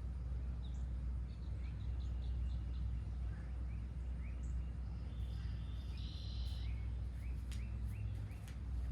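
Wild birds singing in short, high chirps and calls, with a buzzy trill about six seconds in, over a steady low rumble.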